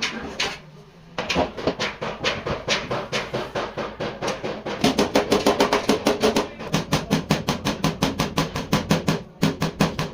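Rapid hammer blows on car body panel metal, after a short pause at the start. The blows are uneven at first, then steady at about five a second, typical of panel beating out accident damage.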